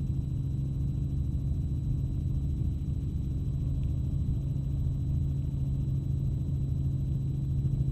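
Steady low drone of a helicopter's rotor and engine heard from inside the cabin, with a faint steady high whine above it.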